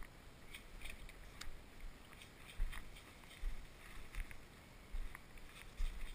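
Footsteps through dry undergrowth, a dull thump about once a second, with rustling and small clicks of branches and gear brushing past.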